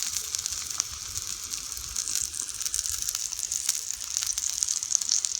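Bacon and eggs sizzling in a frying pan over a campfire: a steady hiss with scattered short pops and crackles.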